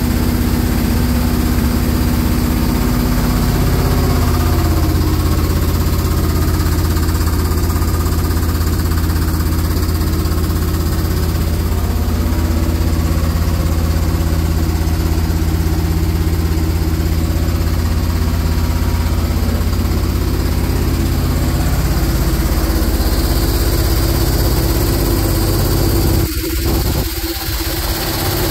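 The engine of a 1975 International dump truck runs steadily at idle on its newly fitted Holley Sniper throttle-body fuel injection. The idle pitch shifts slightly about four seconds in.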